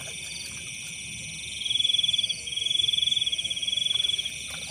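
Night chorus of calling insects and frogs: a loud, rapid trill high in pitch comes in two bouts of about two seconds each, over a steady high ringing of insects.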